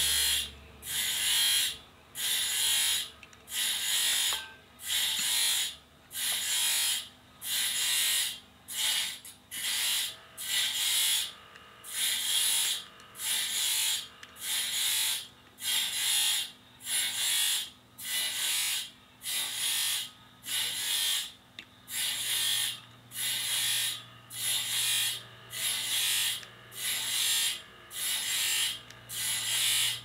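A hand file rasping the end of a flat sawmill drive belt, in steady back-and-forth strokes of about one a second, working the belt end for a joint.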